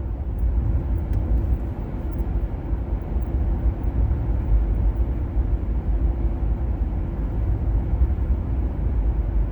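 A car driving steadily along a road: a low, even rumble of engine and tyre noise.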